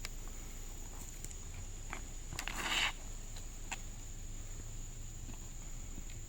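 Insects, likely crickets, trilling steadily in a high, even tone. A brief rustling noise of about half a second comes roughly two and a half seconds in, with a few faint clicks around it.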